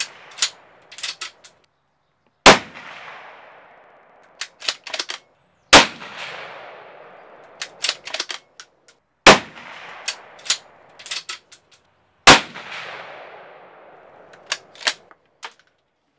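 Ruger Precision Rifle, a bolt-action, fired four times about three to three and a half seconds apart, each shot trailing off in a long echo. Between shots comes a quick run of sharp metallic clicks as the bolt is worked.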